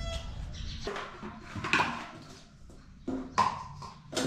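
Steel cooking pots knocking and clinking against each other and the gas stove, a few sharp clinks with a short ring, spaced irregularly. Before them, for about a second, there is a low steady rumble.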